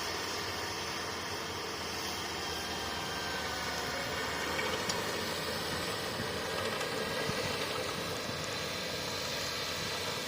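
Crawler bulldozer's diesel engine running steadily under work, an even mechanical drone with no sharp events.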